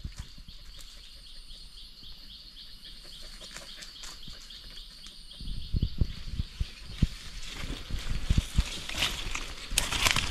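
A high chirping call repeats steadily, about five times a second, through the first half. From about halfway, the thumps and rustles of footsteps through forest undergrowth take over and grow louder near the end.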